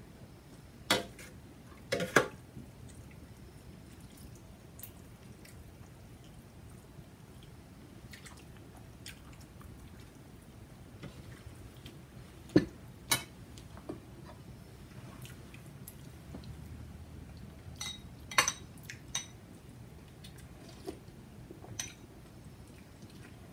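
Metal ladle clinking against a stainless steel hot pot and a porcelain bowl as soup is ladled out, with soft dripping of the soup between. The clinks come singly and in pairs, a few seconds apart.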